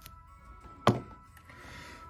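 Quiet background music with steady held notes; about a second in, a single sharp knock as a small die-cast toy car is set down on a tabletop.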